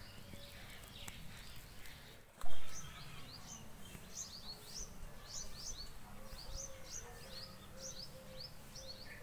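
Small birds chirping: quick, high, falling chirps repeating several times a second, starting after a brief loud knock about two and a half seconds in.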